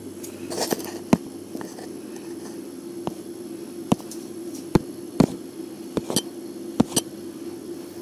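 Scattered sharp clicks and light knocks, about eight of them at irregular intervals, from handling on a workbench, over a steady low hum.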